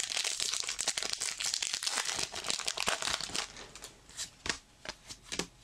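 Foil wrapper of a Kaijudo trading card booster pack being torn open and crinkled: dense crackling for about three and a half seconds, then a few lighter ticks and swishes as the cards are pulled out and handled.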